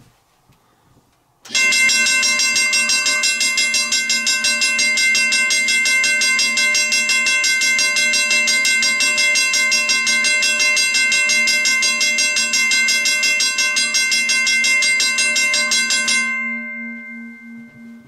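A cast iron Griswold mechanical railroad crossing bell and a General Electric electronic crossing bell ringing together in fast, even strikes, starting about a second and a half in. Both cut off about sixteen seconds in, and the gong rings on and fades.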